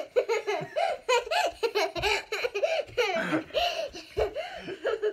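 A young boy and a man laughing together, the boy's laugh high-pitched and in quick repeated bursts.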